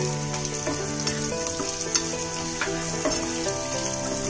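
Diced onion with chopped garlic and ginger sizzling in hot oil in a nonstick frying pan, stirred with a spatula that scrapes and taps against the pan several times. Soft background music with held notes plays underneath.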